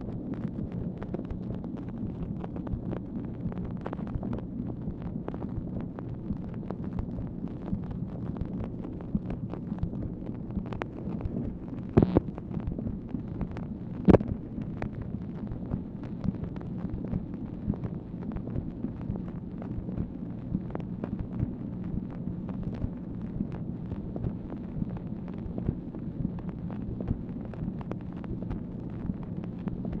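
Playback noise of an old Dictabelt telephone recording: a steady low hum with a constant crackle of small clicks, and two louder clicks about two seconds apart near the middle.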